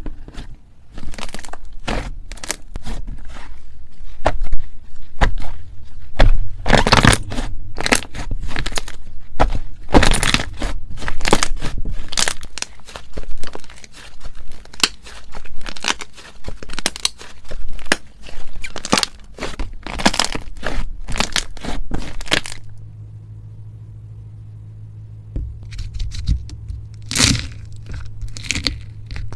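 Slime being squeezed and pressed by hand, giving off dense crackling and popping clicks. Near the end the crackles stop for about three seconds, leaving only a low hum, then start again.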